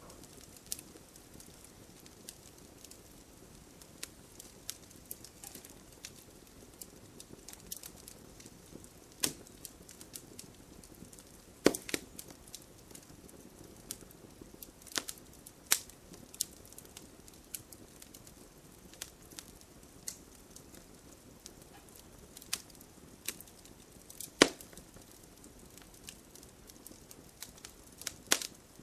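Wood campfire burning with a soft steady hiss and irregular sharp crackles and pops, a few of them much louder than the rest.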